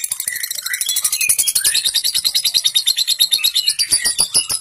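Fischer's lovebird giving a long ngekek: a rapid, even chattering trill of kek notes, about ten a second, with short higher chirps mixed in.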